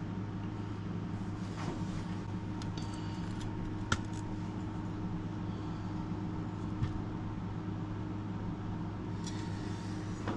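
Steady low machine hum from the workshop, like a fan or motor running, with a sharp click about four seconds in and a softer one a few seconds later.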